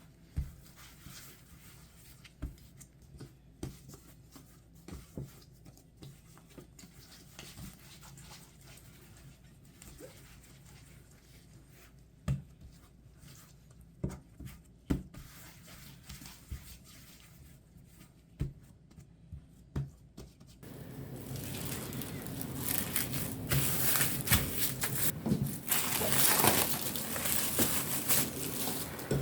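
Handling noises: scattered light taps and knocks, then, about two-thirds of the way in, a louder, steady stretch of crinkling and rustling.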